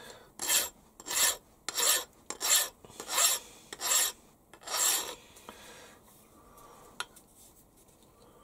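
Hand file stroked along the edge of a freshly milled metal block to deburr it: seven quick strokes, about one every two-thirds of a second, stopping about five seconds in. A single light click follows near seven seconds.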